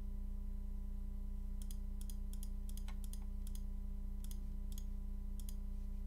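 Computer mouse clicking: a run of about eight quick clicks over roughly four seconds, each a short press-and-release pair, over a steady low electrical hum.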